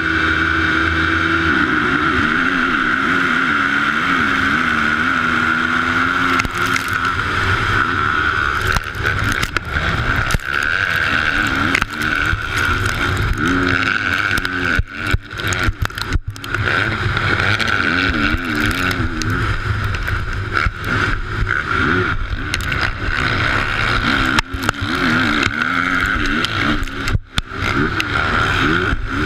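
Suzuki RM-Z450 four-stroke single-cylinder motocross engine heard onboard: revved up and down at the start gate for the first few seconds, then run hard through the gears as the race gets under way.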